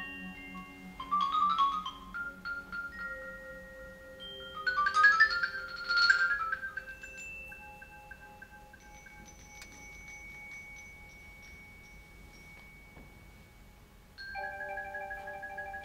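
Mallet percussion trio playing: two quick rising runs of bright, bell-like notes, the second the loudest, then long ringing notes slowly dying away, and near the end a new held chord with a pulsing shimmer.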